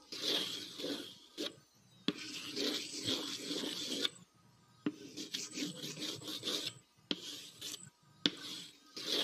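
Scratchy drawing sound effect: a marker rubbed across a surface in about four long strokes of one to two seconds each, with short pauses and small clicks between them, as circles and a symbol are drawn for a spell.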